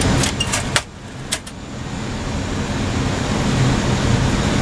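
Steady flight-deck noise of an Airbus A319-112 in flight, a broad hiss and hum. A cluster of sharp clicks comes in the first second and a half, after which the noise drops suddenly and builds back up over the next two seconds.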